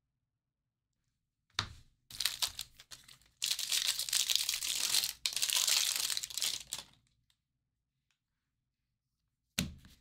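Foil wrapper of a baseball card pack crinkling and being torn open by hand. It starts with a short click and scattered crackles, then turns into a loud, continuous tearing crinkle for a few seconds, with a brief break in the middle. Another short click comes near the end.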